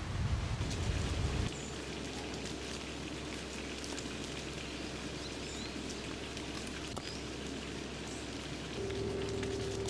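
Soft, steady patter of many small ticks, like rain, with a low rumble that drops away after about a second and a half. A few faint high chirps sound through it, and a steady low tone comes in near the end.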